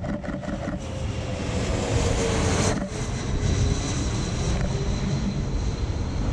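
Jet airliner passing low overhead: steady engine noise with a whine that slowly falls in pitch, broken briefly about three seconds in.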